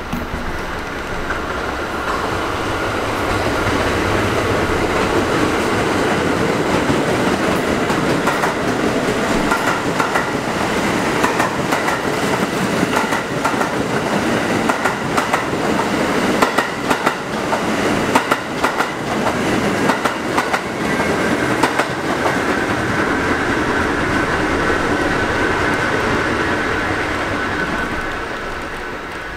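New York City Subway train running past on the track beside the platform, a steady rumble that builds over the first few seconds. Rapid clicks of wheels over rail joints come through the middle, and a steady high whine rises over the last several seconds before the sound eases off at the end.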